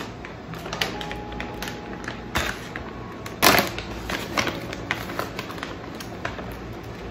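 Plastic bag of frozen blueberries rustling and crinkling as it is handled, with berries clicking as they drop into a plastic blender cup. One louder burst of rustling comes about halfway through.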